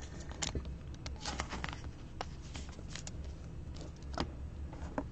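Faint, scattered clicks and rustles of trading cards and their plastic holders being handled, over a low steady hum.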